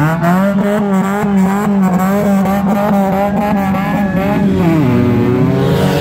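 Car engine revving hard and held at high revs, its pitch wavering up and down. It drops briefly about five seconds in, then climbs again.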